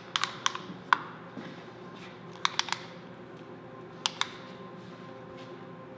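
A tape measure being handled and laid along a bighorn ram's horn: scattered sharp clicks and taps, several in quick clusters of two or three, over quiet room tone.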